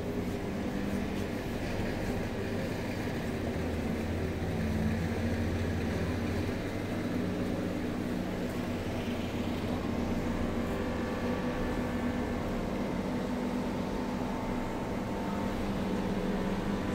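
A steady low mechanical hum made of several held tones, running on without a break.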